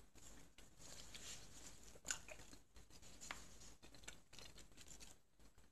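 Near silence, with a few faint clicks of a metal spoon against a ceramic soup bowl as broth is scooped, the clearest about two seconds in and again about a second later.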